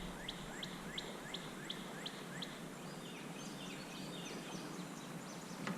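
A songbird calling: a run of short repeated notes, about three a second, then a few quicker falling notes. A single knock sounds near the end.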